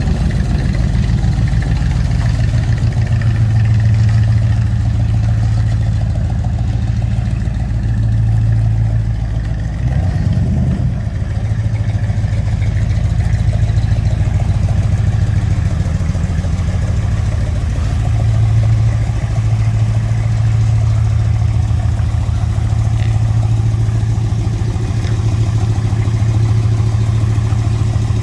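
Car engine idling with a steady, lumpy low rumble, given one short blip of the throttle about ten seconds in.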